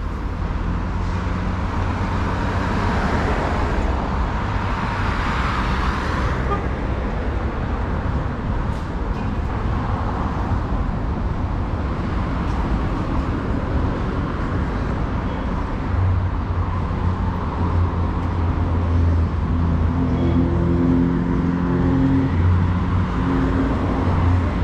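City road traffic passing, a steady rush of cars and tyres with swells as vehicles go by in the first few seconds. In the second half a heavy vehicle's engine adds a strong low hum.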